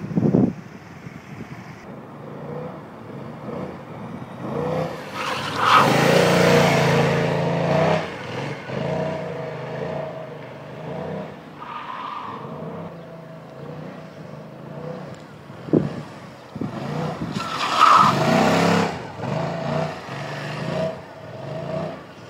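BMW maxi-scooter engine revving up and dropping back again and again while it is ridden hard, with two loud surges about six and eighteen seconds in.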